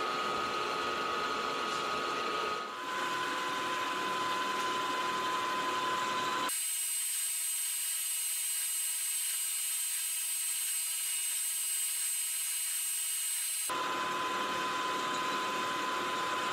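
Milling machine running with an end mill cutting a slot in a metal plate: a steady mechanical whine with a clear tone that drops slightly in pitch about three seconds in. For several seconds in the middle the sound abruptly turns into a thin, high hiss with a high whistle and no low end, then the machine sound returns.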